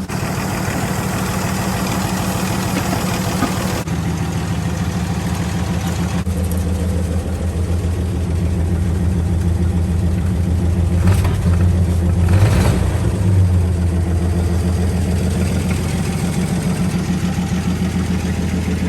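Toyota Land Cruiser FJ45's 2F inline-six petrol engine running steadily. Its note shifts a couple of times, with a brief louder burst about 11 to 13 seconds in.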